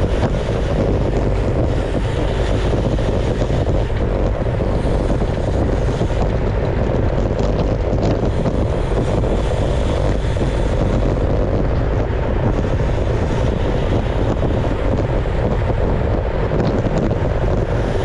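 Wind rushing over the microphone of a bike-mounted camera at riding speed: a steady, loud, low rumble that stays even throughout.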